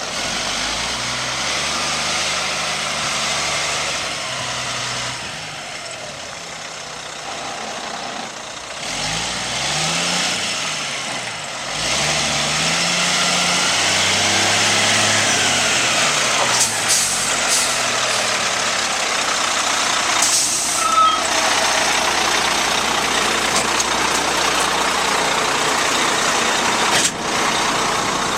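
Cat C-10 diesel engine of a Kenworth T800 concrete mixer truck running, its pitch rising and falling twice in the middle as it is revved, over a steady rushing noise that grows louder about twelve seconds in.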